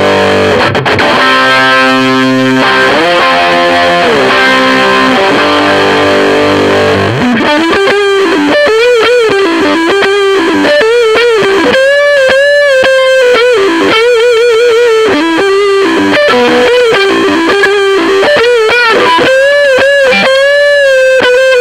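Electric guitar through a Mesa Boogie Recto-Verb 25 tube combo with the gain turned fully up, playing distorted chords for the first few seconds, then a single-note lead line with string bends and vibrato on the neck pickup.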